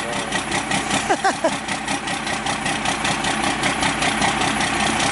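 First-generation Dodge Cummins 5.9-litre inline-six turbo diesel idling steadily with an even, rapid clatter, shortly after a cold start in freezing snow. The engine is fitted with a big camshaft.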